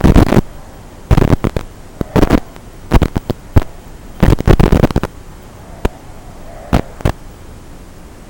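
Loud, irregular clusters of sharp cracking bursts, several each second or so, which thin out toward the end. Between them, faintly, comes the rising and falling whine of FPV racing drones passing.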